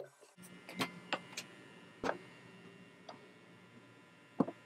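Sparse, irregular light knocks and clicks from handling the wooden (plywood) 3D-printer enclosure, the strongest a pair near the end. A faint low hum sits under the first two seconds.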